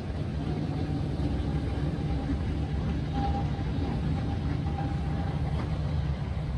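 Jet airliners taxiing: a steady low rumble of engines at idle thrust, with a faint held whine through the middle.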